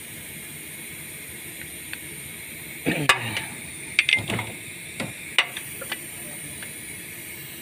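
Hand tools clicking and knocking on the engine's belt idler pulley as it is fitted: a handful of short metallic clicks, bunched together about three to six seconds in, over a steady hiss.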